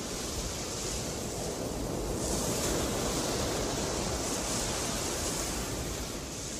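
Sea waves washing onto a shore, a steady rush of surf that swells about two seconds in.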